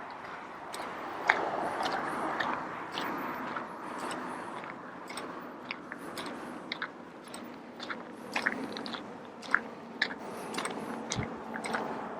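Footsteps crunching on a gritty path while walking, with irregular short crunches about once or twice a second over a steady outdoor hiss.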